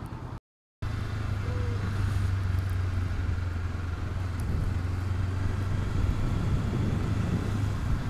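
Honda CB500X's parallel-twin engine running steadily while riding, under road and wind noise. The sound drops out completely for a moment just under a second in.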